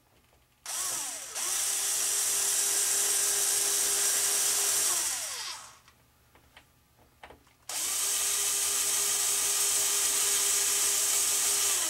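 Small power drill run twice, about four to five seconds each time, winding up to a steady whine and winding back down, driving the nylon wing-mounting screws.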